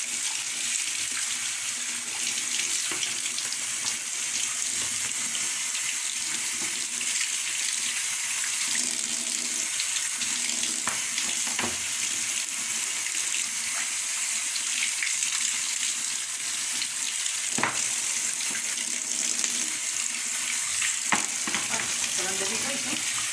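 Water spraying and splashing steadily as dust is rinsed off air-conditioner and exhaust fan parts, with a few knocks.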